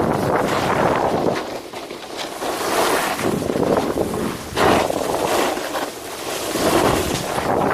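Snowboard sliding and carving on packed snow: a scraping hiss that swells and fades several times as the board turns, mixed with wind noise on the microphone.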